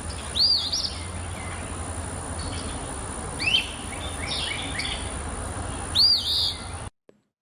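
Recorded Eastern Phoebe song played back: three short phrases of arching, sweeping high notes, about half a second in, around three and a half seconds, and near six seconds, over the steady hiss and low hum of the field recording. The playback cuts off abruptly near the end.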